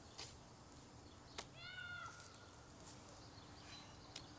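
Near silence: quiet outdoor ambience with a single soft tick, then one short, faint animal call with a slight rise and fall in pitch, lasting under a second.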